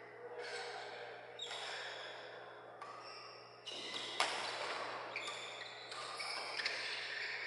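Badminton rally: sharp racket strikes on the shuttlecock, the loudest about four seconds in, and shoes squeaking in short high-pitched chirps on the court mat, over a steady low hum.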